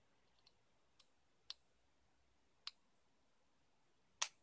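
Small, sharp clicks from the internal parts of an opened Samsung Galaxy Tab 3 being pried and handled: a few faint ticks, then several louder clicks, the loudest near the end.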